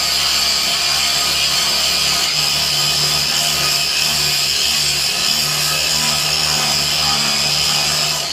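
Angle grinder running steadily against a rusted steel plate, grinding off the rust with a loud high-pitched whine, then cutting off at the very end.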